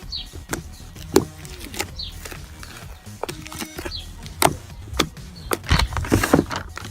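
Fluffy slime being squeezed and poked by hand, giving irregular sharp pops and clicks, several a second.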